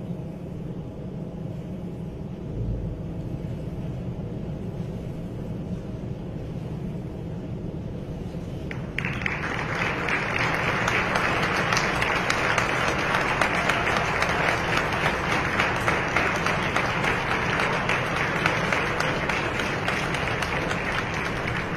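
Low, steady hall ambience, then about nine seconds in an audience starts applauding suddenly and keeps clapping steadily.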